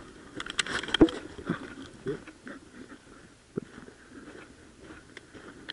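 Footsteps crunching on a sandy, gravelly dirt road, with a sharper knock about a second in and a few lighter steps after it.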